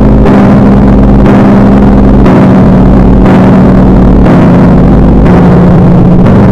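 Extremely loud, clipped and distorted ear-rape music: a held droning tone that steps in pitch, over a deep bass pulse that comes and goes about once a second.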